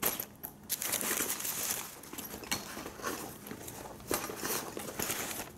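Irregular rustling and crinkling as a fabric laptop briefcase and its paper-card hang tag are handled and shifted about, with a few louder scrapes along the way.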